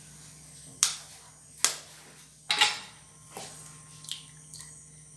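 Eggs being cracked against the edge of a bowl: three sharp taps about a second apart, then a few fainter clicks.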